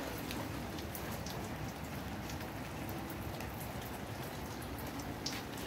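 Steady rain falling, an even hiss with scattered individual drops ticking close by.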